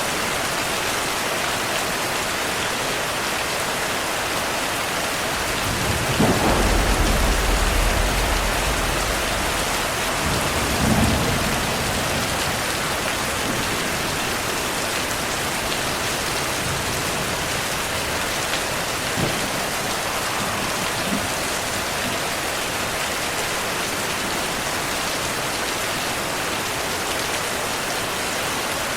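Steady heavy rain falling, with a peal of thunder rumbling low for about four seconds from around six seconds in and a shorter rumble just after.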